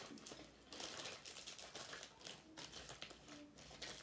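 Faint, irregular light clicks and rustles of small objects being handled and moved about, as someone rummages on a craft table.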